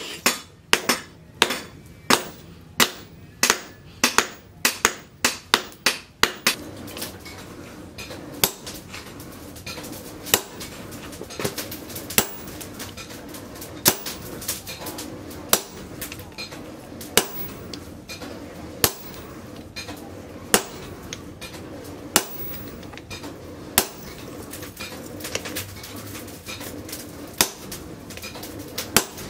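Hammer blows on steel over an anvil while forging an axe from leaf-spring steel: a quick run of ringing strikes, two or three a second, for about six seconds. Then a steady hum comes in, and slower single strikes ring out every second and a half or so.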